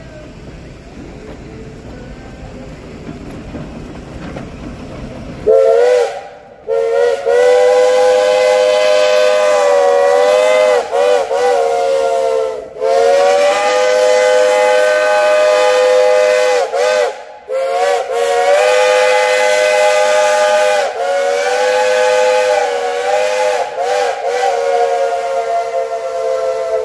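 Shay geared steam locomotive's chime whistle blowing a chord of several notes: a short toot about five seconds in, then three long blasts, the pitch sagging briefly several times. Before the whistle, a low steady rumble.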